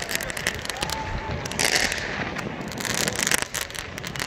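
Fireworks going off: a dense run of sharp bangs and crackles, with louder clusters about one and a half and three seconds in.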